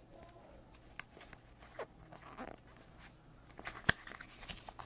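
Pokémon trading cards handled in the fingers, flipped and slid against one another: a run of soft clicks and rustles, with one sharper snap of a card about four seconds in.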